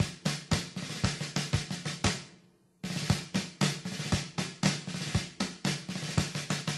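Drums in a music track: snare and bass drum beating in a quick, dense pattern over a low sustained tone. It fades away about two and a half seconds in, then starts again suddenly.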